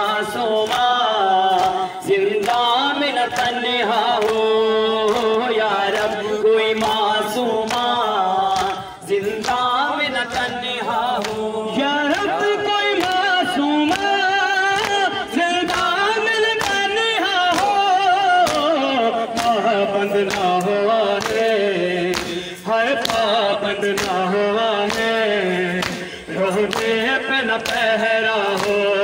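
Noha, a Shia lament, sung by a male reciter into a handheld microphone, with other men chanting along. The mourners' hands slap their chests (matam) in a steady beat under the singing.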